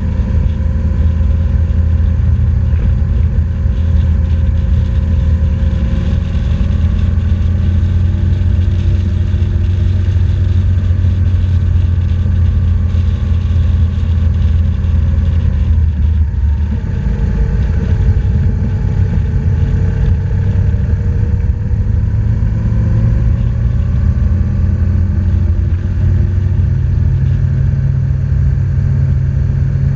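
BMW R1200GS flat-twin motorcycle engine running under way, recorded on the bike, its pitch slowly rising and falling with the throttle and dipping briefly about halfway through, under a steady rush of wind noise.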